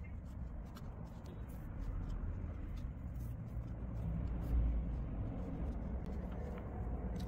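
Soft rustling and faint ticks of cotton macrame cord being handled and pulled through as double half hitch knots are tied, over a low steady rumble.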